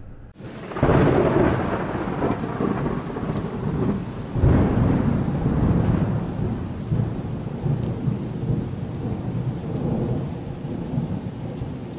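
Thunderstorm: steady rain with rolling thunder, a first roll rising about a second in and a second heavy roll about four seconds later, then slowly easing off.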